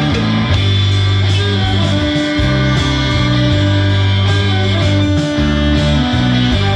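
Live band playing amplified through a PA: electric guitars, bass guitar and a drum kit, with sustained bass notes under the guitars and cymbals hit regularly.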